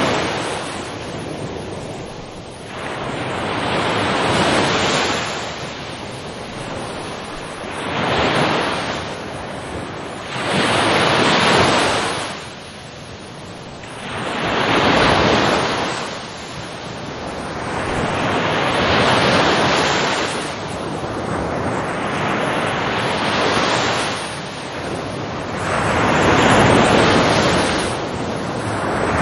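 Ocean waves breaking and washing in, one surge after another every few seconds, each swelling and then fading.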